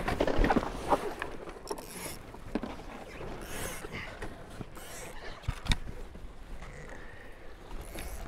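Deck and rigging noise aboard a Tornado racing catamaran: scattered knocks, clicks and creaks with a few brief hissing rushes, over a steady wash of wind and water.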